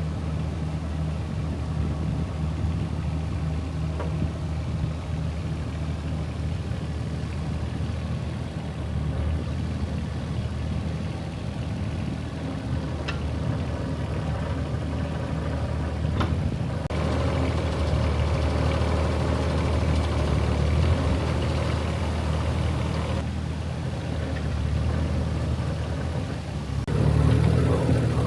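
A motor vehicle engine running steadily, growing louder about two-thirds of the way through and again near the end as the load or engine speed changes.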